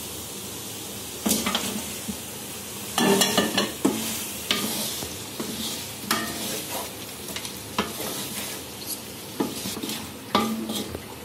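Pieces of chicken being added to a pan of sizzling onion and spice paste and stirred in. The frying keeps up a steady sizzle, broken by several sharp clatters and scrapes of the spoon against the pan.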